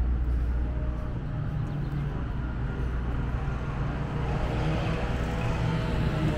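Street traffic: a low, steady motor-vehicle rumble, strongest in the first couple of seconds, with a pitched hum growing near the end.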